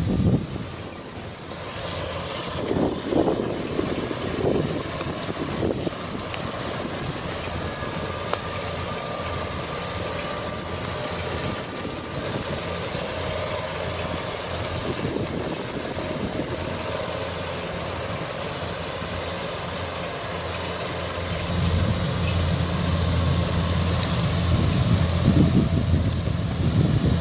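Kubota DC95M combine harvester running steadily as it works the rice field, its engine hum growing louder about three-quarters of the way through.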